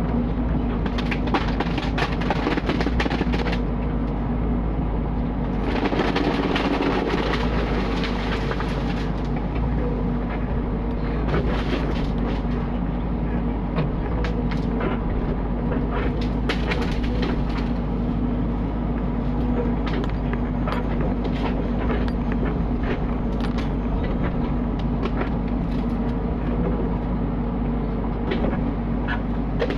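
Mini excavator's diesel engine running steadily under load, with irregular knocks and cracks throughout, busiest from about six to nine seconds in.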